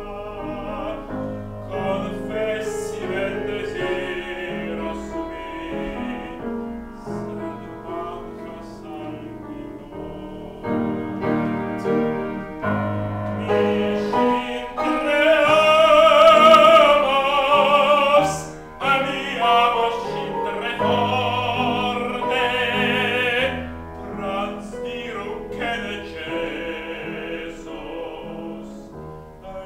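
Solo classical singing in operatic style with vibrato, accompanied by a grand piano. About halfway through, the voice swells to its loudest on a long high note with wide vibrato, then settles back.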